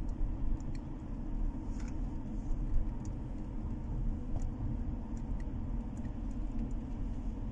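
Steady low rumble of a running car heard from inside the cabin, with a few faint, scattered ticks.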